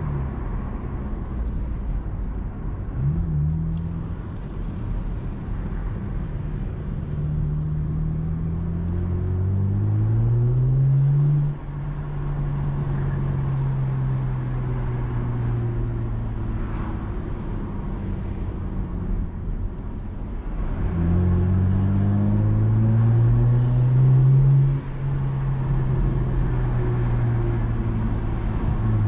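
Chevrolet Camaro engine heard from inside the cabin while driving through town, over steady road noise. Twice the engine pulls up in pitch under acceleration. Each pull ends in a gear change, where the pitch and loudness drop suddenly and then settle into an easing cruise.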